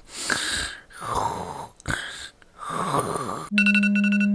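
A sleeper snoring, one breath about every second. About three and a half seconds in, a phone alarm ringtone starts suddenly: a steady electronic tone with a fast regular pulse.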